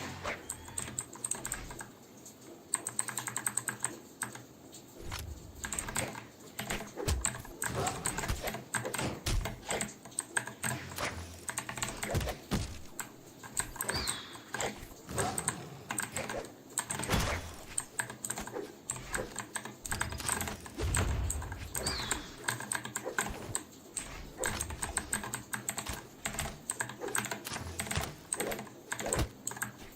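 Typing on a Vortexseries VX8 mechanical keyboard with clicky blue switches: a quick, uneven stream of sharp key clicks and clacks.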